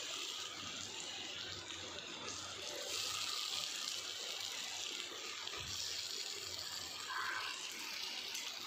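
Steady sizzling of hot oil and spices in a kadai as boiled potatoes are crumbled in by hand and stirred with a steel spatula.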